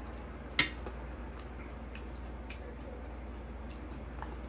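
Fork clinking on a china dinner plate while eating: one sharp clink about half a second in, then a few faint ticks, over a steady low hum.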